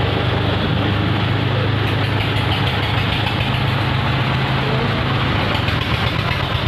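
An engine idling steadily: an even low tone over a constant wash of noise, with no change in speed.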